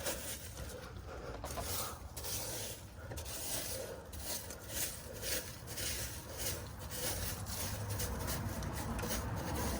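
Irregular rubbing and scraping of hand work on debris and fiberglass, over a low steady hum.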